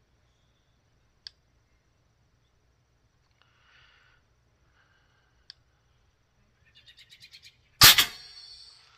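One shot from an FX Panthera .30-calibre PCP air rifle fitted with a moderator: a single sharp report near the end with a short ringing tail. A few faint clicks and a quick run of small ticks come before it.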